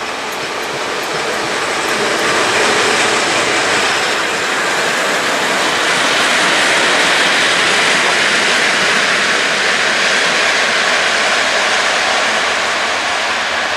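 An ET41 twin-section electric locomotive running light past at close range, with no wagons: a steady rushing noise of wheels and running gear on the rails. It swells over the first couple of seconds, stays loud as the locomotive passes and eases slightly near the end.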